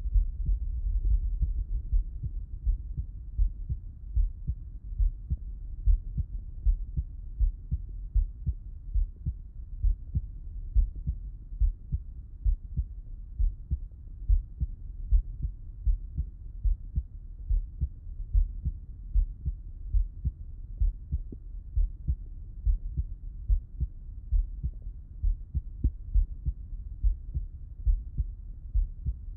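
A man's heartbeat heard through a Littmann stethoscope with him lying on his left side: slow, regular low thumps, roughly one beat a second.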